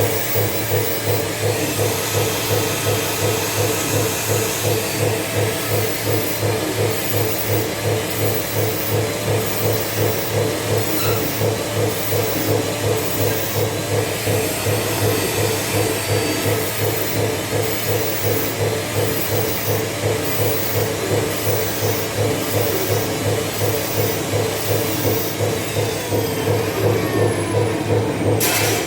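Welding arc running continuously: a steady, crackling buzz and hiss over a low hum.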